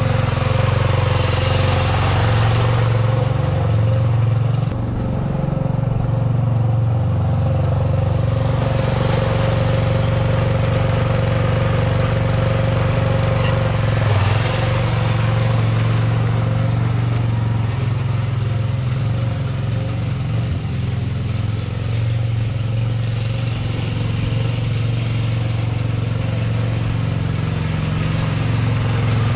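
Sears 10XL garden tractor's replacement 6.5 hp single-cylinder clone engine running at a steady, even speed while the tractor is driven around. It sounds brightest about halfway through, as the tractor passes close by.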